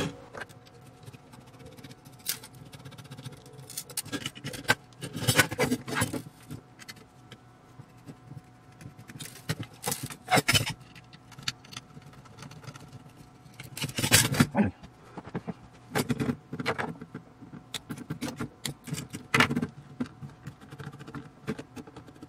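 Handling noise from a metal avionics chassis being taken apart: scattered clicks, clinks and scrapes of metal parts and a small screwdriver on the chassis and the wooden bench, loudest in short clusters about five, ten and fourteen seconds in.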